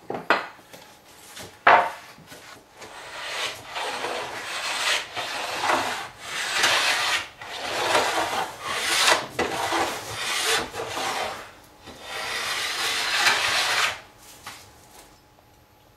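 Stanley No. 50 combination plane cutting a bead along the edge of a wooden cladding board: a run of short strokes one after another, the last one the longest, stopping about two seconds before the end. Two sharp knocks come near the start.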